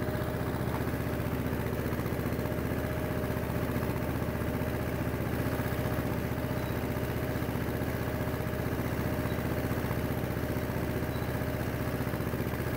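Vladimirets T-25A tractor's two-cylinder air-cooled diesel running steadily as the tractor drives along the field, heard close up from the driver's seat.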